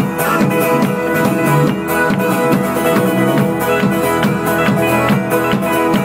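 A live folk-rock band playing an instrumental passage: fast-strummed acoustic strings over a steady kick-drum beat, with no singing.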